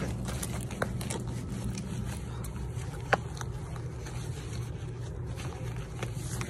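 Steady low hum of a shop's background machinery, with rubbing and two sharp clicks, about one second and three seconds in, from a phone being handled close to its microphone.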